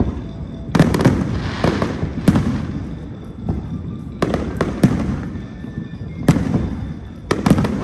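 Aerial fireworks bursting overhead: about six sharp bangs, spaced a second or two apart, with a low rumble rolling on between them.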